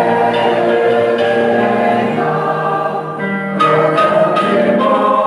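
A church choir and congregation singing a hymn together, many voices on slow, long-held notes, with a short break between lines a little past halfway.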